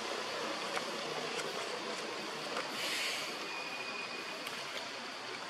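Steady rushing outdoor background noise, with a brief hiss about three seconds in and a thin, high, steady tone lasting about a second just after it.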